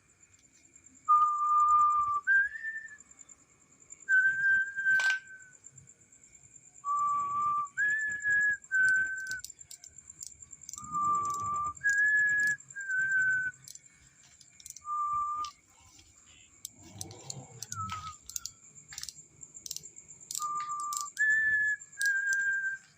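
Clear whistled notes in a short phrase that steps low, then high, then a little lower, repeated about six times with pauses of a few seconds. Under them is a steady faint high-pitched tone and scattered light clicks.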